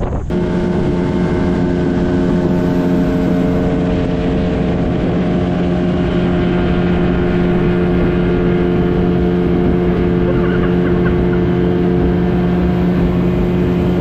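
Outboard motor driving a small aluminium boat at a steady speed, one unchanging drone over the rush of water from the wake.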